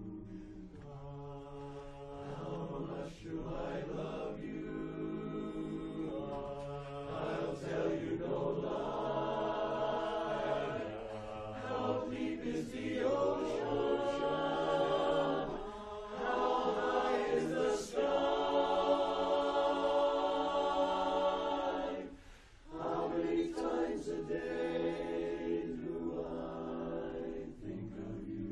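Mixed barbershop chorus of men's and women's voices singing a cappella in close harmony, holding sustained chords that swell to their loudest in the second half, with one short break near three quarters through.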